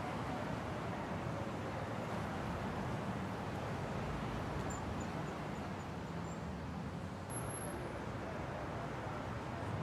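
Steady city street traffic noise: a continuous wash of passing cars, with a faint engine tone sliding slowly down in pitch near the start.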